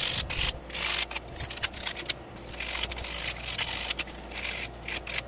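220-grit sandpaper rubbed by hand over the edges of a metal lightsaber emitter, in quick, uneven strokes with short pauses between them. The sanding roughs up the edges to give the hilt a weathered, worn finish.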